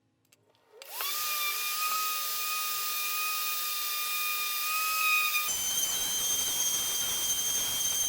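Electric sander starting up, its motor whine rising to a steady pitch as the curved end of a pine handle is sanded. About five and a half seconds in the sound changes abruptly to a higher, rougher whine.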